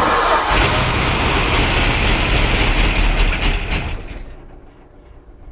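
Chrysler 340 small-block V8 being cranked on starter fluid, sputtering as it tries to fire, then dying away about four seconds in: the engine will not stay running.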